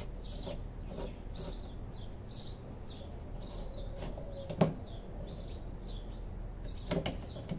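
Hand rivet nut tool being worked while setting a threaded rivet nut: one sharp click about halfway through and two lighter clicks near the end. A bird chirps in the background about twice a second.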